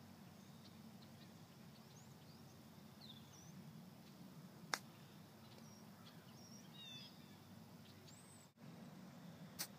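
A 50-degree wedge striking a golf ball on a chip-and-run shot: one sharp click about halfway through, over faint bird chirps and a low outdoor rumble. After a brief dropout, a second click near the end.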